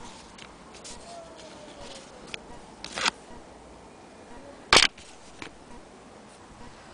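Handling noise: a few scattered clicks and rustles as the stitched cloth is taken from the sewing machine and laid down, with one sharp knock about two-thirds of the way through as the loudest sound.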